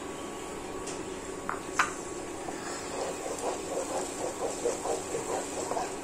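A wooden spatula stirring onion-garlic paste and tomato purée in a nonstick pot: a soft, rhythmic scraping about three or four strokes a second, starting a couple of seconds in, over a steady hum from the induction cooktop. A single sharp click comes a little before the stirring starts.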